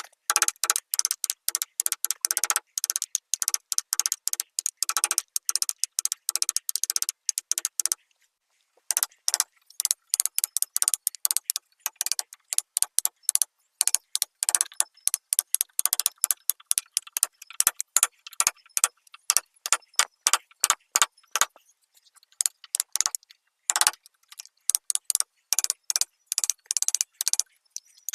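A hand tool working on wood: a fast run of short, sharp scraping or tapping strokes, several a second, with a short pause about eight seconds in.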